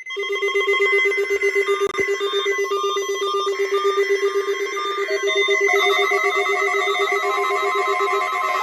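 Electronic emergency-alert tones: a low tone pulsing rapidly like a ringing telephone, with beeping tones at several higher pitches layered over it and a steady higher tone joining about six seconds in.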